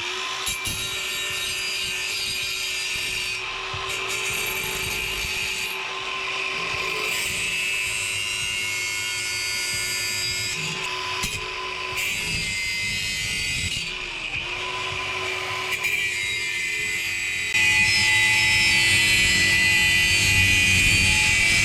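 Electric angle grinder running under load against steel body panel, a continuous high-pitched whine with a hiss of metal being ground away. Its motor pitch dips briefly about two-thirds of the way through as the wheel bites in, and the sound gets louder near the end.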